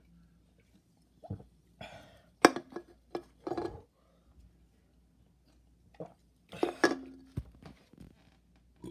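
A person burping from carbonated Pepsi: several short throaty bursts and gulps, with a sharp click, and a louder burst about seven seconds in that ends in a brief steady low tone.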